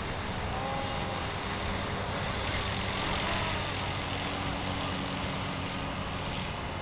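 Steady drone of a belt-drive collective-pitch RC helicopter flying overhead, a constant low hum under an even hiss.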